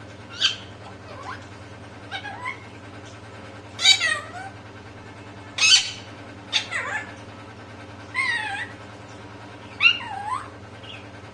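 A parrot making a series of short meow-like calls, one every second or two, several of them falling in pitch.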